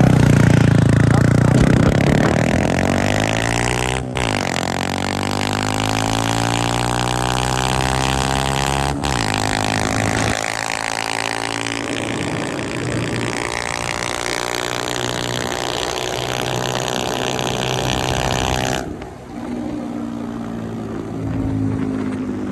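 Motorcycle engine accelerating through the gears: its pitch climbs, drops at a shift about 4 seconds in, climbs again and drops at a second shift about 9 seconds in, then holds a steady cruise. Heavy wind noise on the microphone runs over the engine and cuts out suddenly near the end, leaving the engine quieter.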